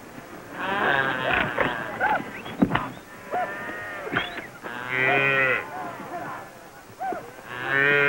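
A calf bawling in distress as it is roped and thrown to the ground for branding. Three long calls come about a second in, around five seconds in, and near the end.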